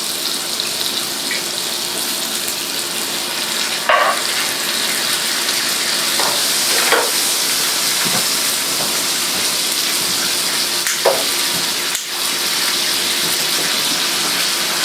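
Hot sauté pan of mushrooms with freshly added Marsala and Madeira wine sizzling steadily as the alcohol cooks off. A few short knocks, about four, seven and eleven seconds in, are the utensil against the pan.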